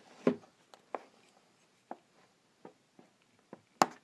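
Scattered light taps and clicks of fingers and a slim tool working at the end flap of a small cardboard toy box to open it, about half a dozen separate ones, with the sharpest click just before the end.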